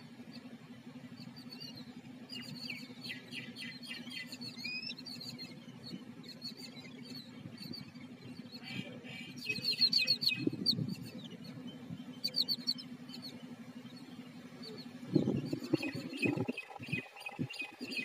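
Babblers chattering in bouts of rapid, harsh calls over a steady low hum, with low rumbling bumps about ten seconds in and again near the end.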